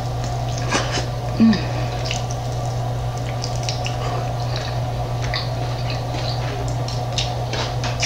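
Close-up eating sounds of crunchy barbecue chicken wings dipped in ranch: wet chewing and smacking with many small crunchy clicks, over a steady low hum. A short pitched vocal sound comes about a second and a half in.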